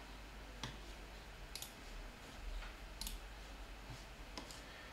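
Four faint computer mouse clicks, spread a second or so apart, over quiet room hum.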